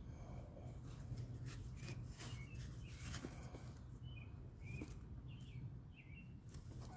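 Small birds chirping in short, scattered calls. Soft knocks and rustles come from a fabric pet carrier being handled close to the microphone.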